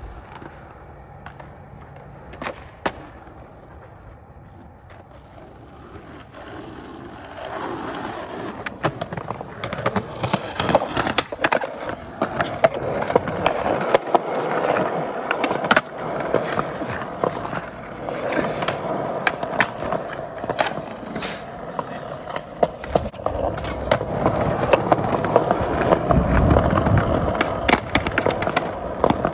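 Skateboard wheels rolling over concrete sidewalk joints, with sharp clacks of the board. From about eight seconds in the rolling is close and loud, and near the end the trucks grind along a concrete curb ledge.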